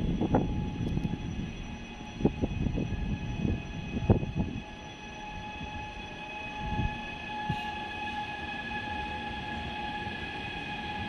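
Trenitalia ETR425 'Jazz' electric multiple unit running at the platform: a steady electric whine at several pitches over a low rumble. Several dull knocks come in the first four seconds, then the rumble settles.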